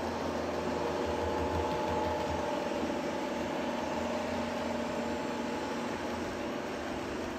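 Sound-fitted model diesel locomotive playing a steady idling diesel engine sound through its small onboard speaker.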